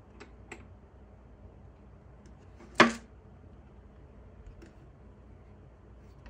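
Hands handling a wooden backgammon case with brass fittings: a few faint clicks and one sharp clack of hard parts knocking together about three seconds in.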